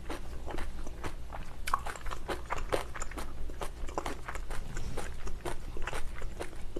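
Close-miked chewing of a mouthful of kimchi with rice: irregular mouth clicks, a few each second.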